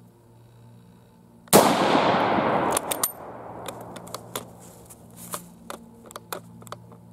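A single rifle shot from an Argentine 1891 Mauser (7.65×53mm) about a second and a half in, with a long echo trailing off. It is followed by a run of sharp metallic clicks as the bolt is worked and the next round is worked at, a round that hangs up on the feed ramp instead of feeding.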